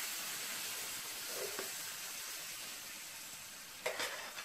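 Steady sizzling hiss from a hot frying pan of beef and vegetable sauté, slowly fading, with a brief clatter near the end.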